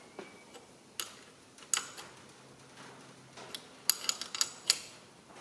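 Steel spanner clicking against the acorn nuts and top-cover fittings of a CAV diesel injection pump while the nuts are nipped up. A few separate metallic clicks come first, then a quick run of louder clicks about four seconds in.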